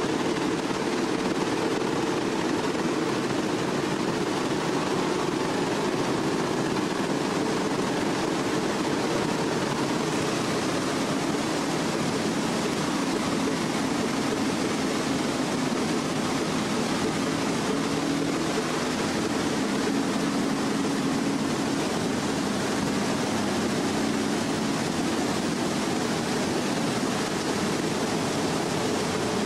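Giant wooden noria waterwheel turning, with a steady rush of water pouring and splashing off its paddles.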